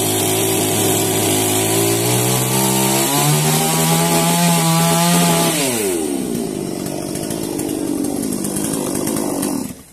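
Chainsaw cutting into a log: the engine note climbs steadily for the first five seconds or so, then drops about halfway through as the saw works in the wood, going on as a noisier drone until it stops suddenly near the end.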